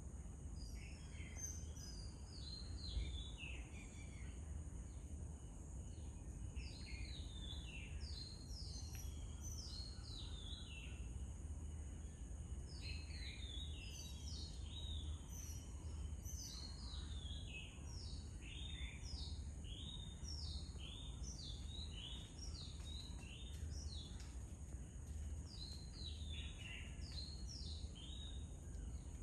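Birds chirping: many short, downward-sliding calls in quick runs throughout, over a steady high hiss and a low rumble.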